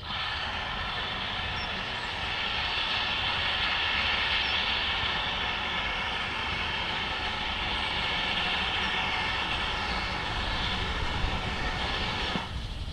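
Steam locomotive making a steady, loud, high-pitched roar that starts abruptly and cuts off shortly before the end.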